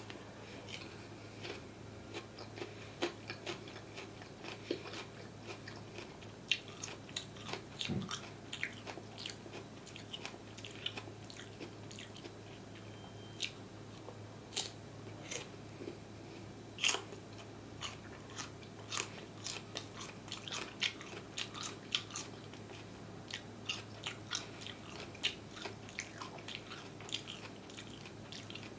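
A person biting and chewing crunchy food close to the microphone, with many irregular crisp crunches and wet mouth sounds.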